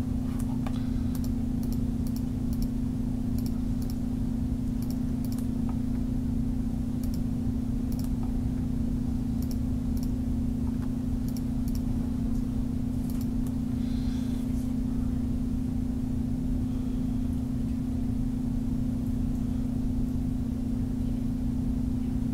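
Steady low background hum, like an electrical or computer hum, with scattered faint clicks, mostly in the first half, that fit a computer mouse being clicked.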